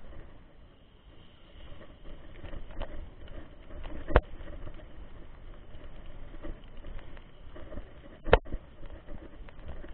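Mountain bike rolling over a wet, muddy dirt road, heard from the handlebars: tyre noise and rattling, with two sharp knocks, one about four seconds in and a louder one about eight seconds in.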